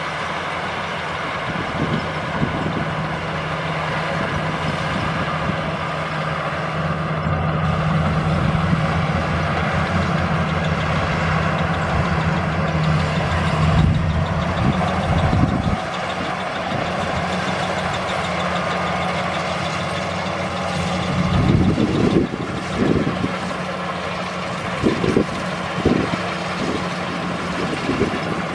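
Maxxi Bimo 102 rice combine harvester running under load: a steady engine drone mixed with the dense clatter of the harvesting and threshing machinery. A few short low thumps come in the last third.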